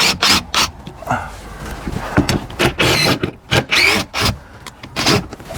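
Cut-out chunk of wall sheathing and framing being worked loose from a freshly sawn window opening: wood squeaking and rubbing against wood, with repeated knocks.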